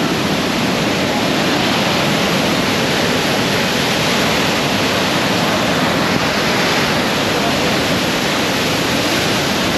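Waterfall heard up close: a steady, loud rush of falling water.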